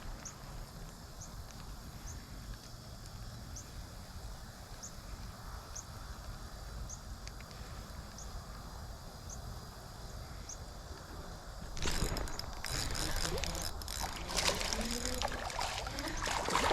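Quiet outdoor ambience with a faint, short high chirp repeating about once a second. About twelve seconds in, a sudden louder stretch of rough, noisy commotion begins and carries on.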